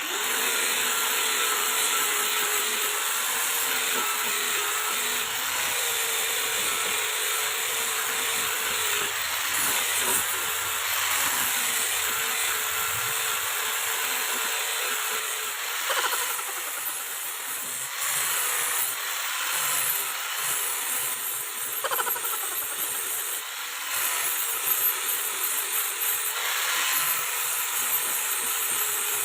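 Handheld power tool running continuously against a piece of wood being shaped for a bolo handle, with small rises and dips in level as the tool bites.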